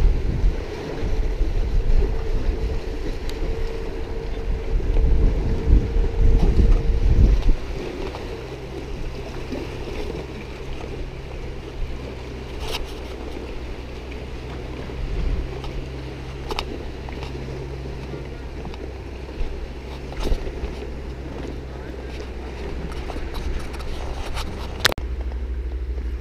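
Wind buffeting the microphone for the first several seconds, then a quieter, steady low hum with a few sharp clicks scattered through it.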